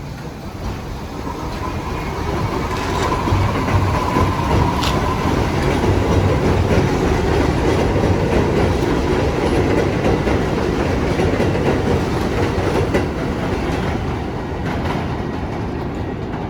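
R62A New York City subway train running on the track. The running noise builds over the first three seconds and then holds steady, with a faint whine about three seconds in.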